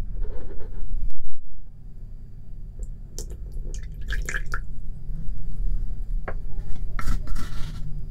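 A small glass bowl is handled on a table. Then liquid detergent and water are poured into it, splashing and dripping against the glass about three to four seconds in. A brief hiss comes near the end, over a steady low hum.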